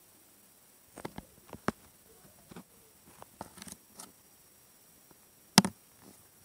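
Scattered light clicks and taps, with one sharp knock about five and a half seconds in, the loudest sound.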